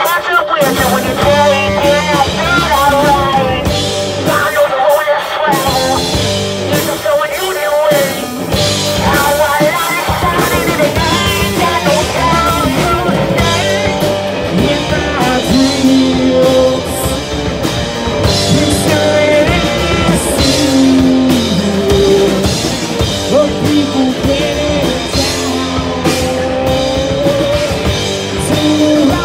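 Live rock band playing: electric guitars and bass through amplifiers over a drum kit, with a singer's voice over the top.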